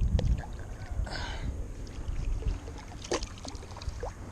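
Water splashing about a second in as a small channel catfish is released back into the river, followed by gentle water sounds and a few small knocks.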